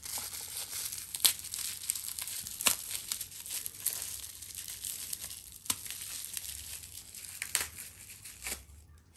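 Plastic packaging crinkling and rustling as it is handled and opened, with sharp crackles now and then; it stops shortly before the end.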